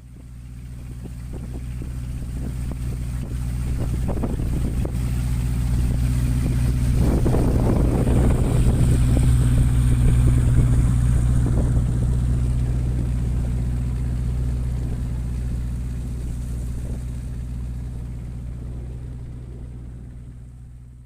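Motorboat engine running steadily with a low, even hum and some water and wind noise, fading in at the start and fading out near the end.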